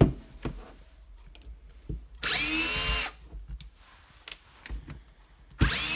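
Cordless drill/driver spinning in two short bursts of about a second each, its motor whine rising as it spins up, as it backs screws out of the impact driver's housing. Light clicks of handling come between the bursts.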